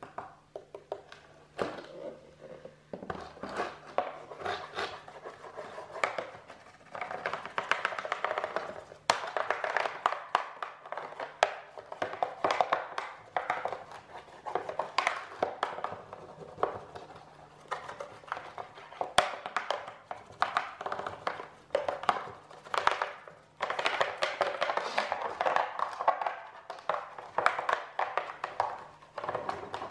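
A wax candle rubbed back and forth over a plastic snow shovel blade, giving a dense run of irregular scraping strokes.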